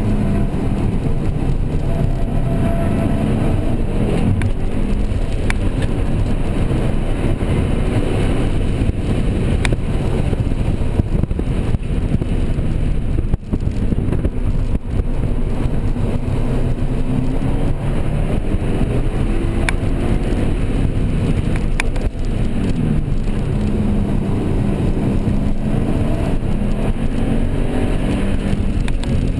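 Subaru Impreza WRX STI's turbocharged flat-four heard from inside the cabin, its pitch rising and falling over and over as the car accelerates and lifts through corners, over steady road and tyre noise.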